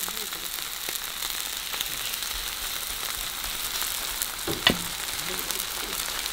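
Seafood frying in hot oil in a pan: a steady sizzle with small crackles, and one sharper pop about two-thirds of the way through.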